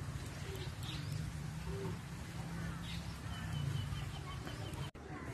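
Birds calling with short chirps, including a quick run of even repeated notes about two thirds of the way in, over a steady low hum. The sound drops out for an instant near the end.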